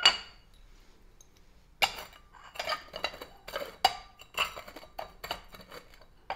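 A sharp glass clink with a brief ring, then a run of irregular light clicks and gritty scrapes as a martini glass rim is pressed and turned in lemon zest and sugar on a ceramic plate.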